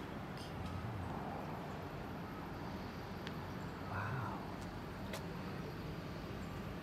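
Street ambience: a steady low hum of road traffic, with a brief swell about four seconds in and a couple of faint clicks.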